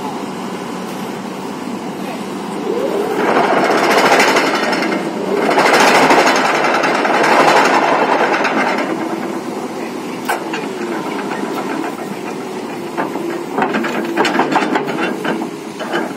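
Excavator-mounted hydraulic vibratory pile hammer driving a steel pipe pile into sand: a loud, rapid buzzing rattle for about six seconds from about three seconds in, then shorter rattling bursts near the end, over the excavator's engine running steadily.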